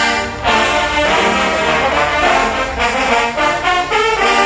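Marching band trombone section playing loud brass music: a held chord, then a run of moving notes, with a chord held again near the end.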